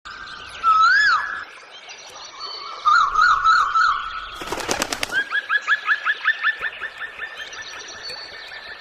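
Birds calling: a rising whistle, then a warbling call, a brief rapid rattle about halfway through, then a run of short repeated chirps, about three a second.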